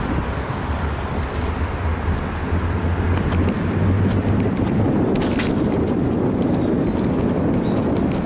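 Wind and road noise picked up by an action camera mounted on a moving bicycle. A low hum fades out about halfway through, and a few sharp rattling clicks come a little past halfway.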